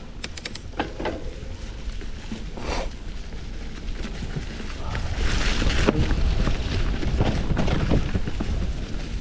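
Ride noise from a Polygon D6 mountain bike on a dirt trail: wind rumbling on the microphone, with tyres rolling over the ground and the bike rattling. A few sharp clicks come just after the start, and the rolling noise grows louder about halfway through.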